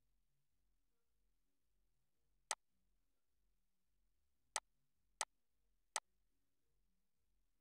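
Four sharp computer mouse clicks against near silence: one about two and a half seconds in, then three more in quick succession a couple of seconds later.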